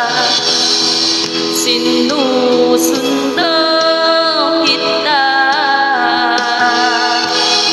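A woman singing long held notes with vibrato over a backing track.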